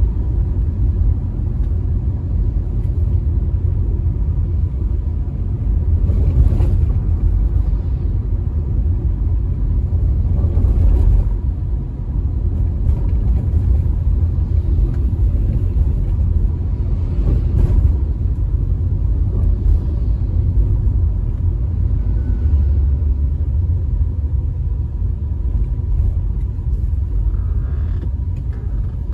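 Road and engine rumble of a moving car, heard from inside the cabin: a steady low drone of tyres and engine. Three times, about a quarter, a third and three fifths of the way through, it swells briefly as other vehicles pass.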